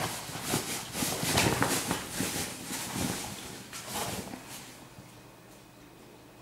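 Fabric rustling and scuffing as a small dog chews and burrows at the cushion of its padded dog bed, an irregular run of rubs and scrapes that dies away after about four and a half seconds.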